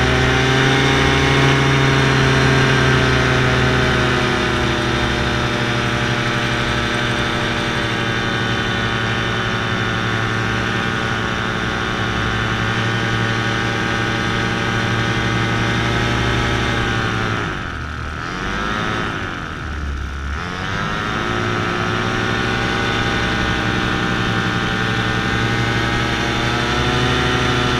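Paramotor engine and propeller running steadily under power. About two-thirds of the way through, the throttle is eased off twice in quick succession, the pitch falling and rising each time, before the engine settles back to steady running.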